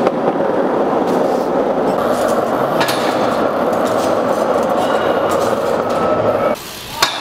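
BMX tyres rolling on a concrete floor: a steady rough rumble with a few sharp clicks, cutting off suddenly about six and a half seconds in.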